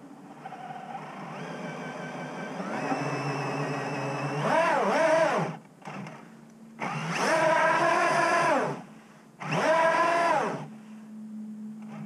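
Whine from the Hobbywing AXE brushless motor and drivetrain of a Traxxas TRX-4 crawler running on a 3S battery. The whine builds gradually, then comes in three loud throttle bursts whose pitch rises and falls, each a second or two long, as the truck works its way up a grassy bank.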